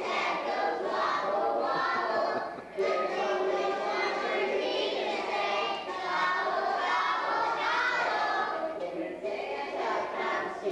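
A group of young preschool children singing a song together in unison, with a short break in the singing about a quarter of the way through.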